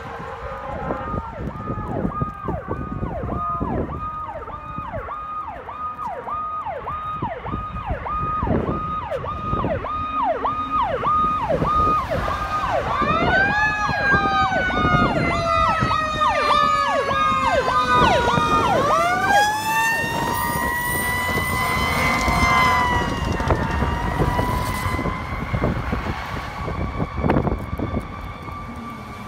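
Fire truck sirens approaching: an electronic PowerCall siren cycles rapidly and evenly for the first half. About halfway through a Federal Q mechanical siren winds up, coasts slowly down, then winds up again higher and holds before falling away near the end.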